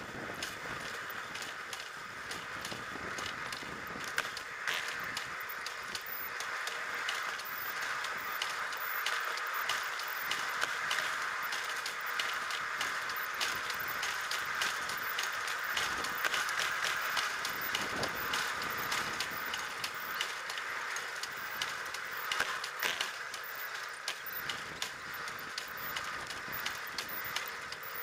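Pedal-powered rail bike rolling along railway track: a steady rolling noise of steel wheels on the rails, with many small clicks and rattles of the running gear.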